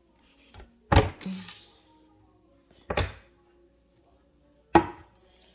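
Three sharp wooden knocks about two seconds apart: the drawers and door of a wooden cabinet being pulled open and pushed shut.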